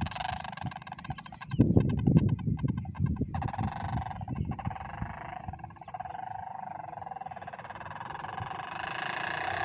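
Motorcycle exhaust buzzing through a balloon fitted over the silencer as the bike rides in the distance, with a choppy, louder rumbling stretch about two seconds in. The buzz steadies and grows louder near the end as the bike comes back.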